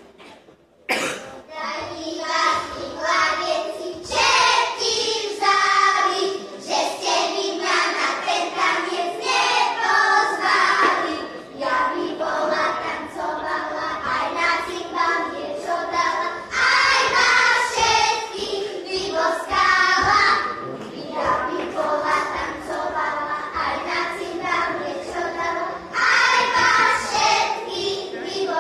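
A group of children singing a song together, starting about a second in after a short pause.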